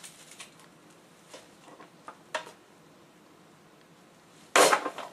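Handling noise: a few light clicks and knocks, then a loud rattling clatter of about half a second near the end. The compressor is not running.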